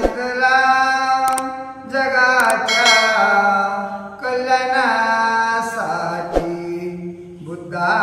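A man singing a Marathi Buddhist devotional song (Buddha geet) into a microphone in long, chant-like held phrases of about two seconds each. There is a brief sharp knock about six seconds in.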